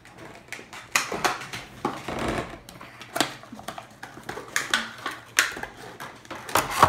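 A cardboard bath bomb box being torn open by hand and a plastic-wrapped bath bomb pulled out of it: irregular crackling and rustling of paper and plastic packaging.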